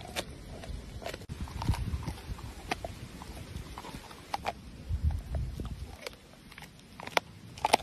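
Rottweiler gnawing on a bone: irregular clicks and cracks of teeth biting and scraping the bone, over a low rumble.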